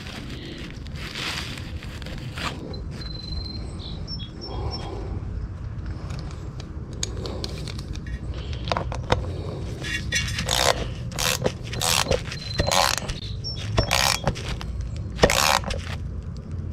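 Hand-tool scrapes and clicks as small air fittings are worked out of an air dryer housing for reuse. Short sharp strokes come more often in the second half, over a steady low rumble.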